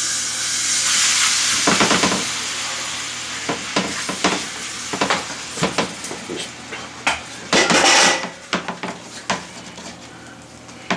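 Bay scallops dropped into smoking-hot olive oil in a stainless steel skillet: a loud sizzle that slowly dies down over a few seconds, then a spatula scraping and tapping the pan as they are stirred, with a brief swell of sizzling again about three-quarters of the way through.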